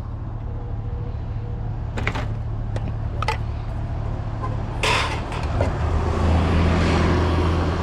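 Steady low hum of an idling pickup truck engine, with several sharp knocks and clatters as scrap (a cable bundle, PVC pipe, wooden boards) is dropped into the truck bed. The loudest clatter comes about five seconds in, and the hum grows stronger near the end.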